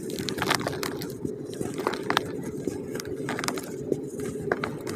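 Hands crumbling and breaking lumps of slightly damp pure cement, many short, irregular crunches and cracks as chunks snap and crumble apart, over a steady low background hum.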